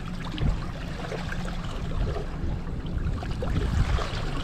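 Water splashing and sloshing against the side of a boat as a sailfish is held in the water to revive it, with small splashes scattered throughout over a steady low rumble.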